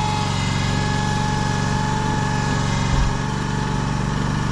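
Small engine of a hydraulic home-moving machine running steadily under load, holding a manufactured-home section in place, with a brief low thump about three seconds in.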